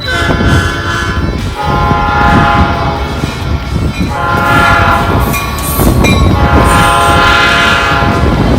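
Train locomotive horn sounding four loud blasts, the last held longest, over the heavy rumble of the approaching train.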